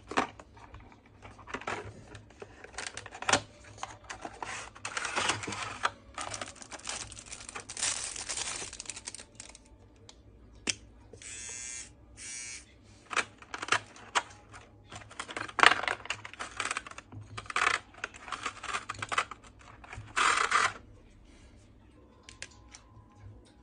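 Unboxing handling noise: a cardboard box, a plastic tray and plastic wrapping rustling and sliding, with many small clicks and knocks as the parts of a small electric trimmer are taken out and handled. Near the middle come two short, even stretches of a steady buzz.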